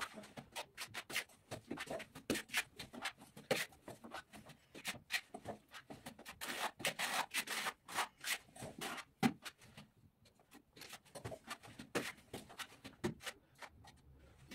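Plastering spatula scraping and dabbing gypsum plaster onto concrete around a vent opening: quick, irregular scrapes and taps, easing off briefly about ten seconds in.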